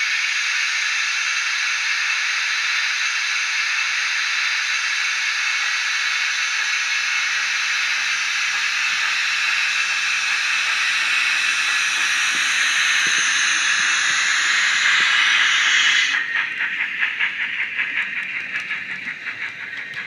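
Model steam locomotive sound decoder playing a steady steam hiss through the Dapol 61XX Large Prairie's small speaker as it moves off. The hiss cuts off suddenly about sixteen seconds in, giving way to rhythmic exhaust beats.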